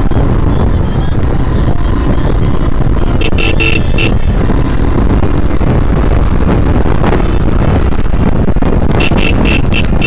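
Yamaha RX135 two-stroke motorcycle being ridden on the road, its engine running as a loud, steady rumble. Short high-pitched beeps come in bursts about three seconds in and again near the end.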